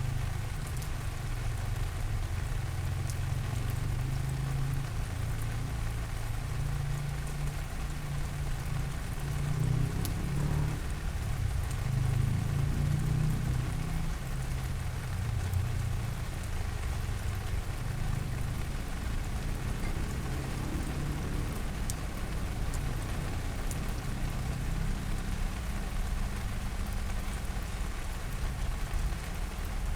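Steady rain falling, a continuous even hiss with scattered drop ticks, over a steady low rumble that swells slightly about a third of the way in.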